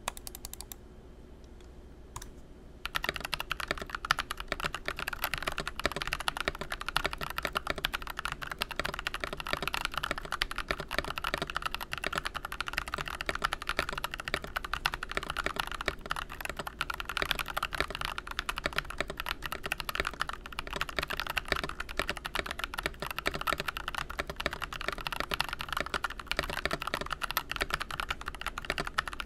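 Fast, continuous typing on a stock Tecware Veil87 mechanical keyboard with Pearl Purple light tactile switches: a dense stream of toned-down key clacks, starting about three seconds in. No plate ping or case hollowness can be heard.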